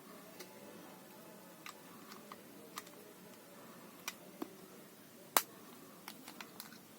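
Faint, scattered small clicks and taps from handling a wireless earbuds case, with one sharper click about five and a half seconds in.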